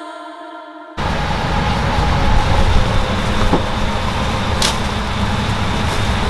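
Soft ambient synth music for about a second, then a sudden cut to a loud, steady rumble of road traffic, with a few faint clicks.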